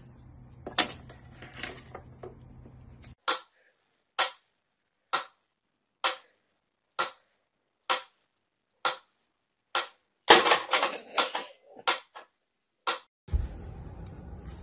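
Mechanical pyramid metronome ticking steadily, a little more than one tick a second, with clean silence between the ticks. About two-thirds of the way through, a louder clatter lasting about two seconds comes over the ticking, which carries on beneath it.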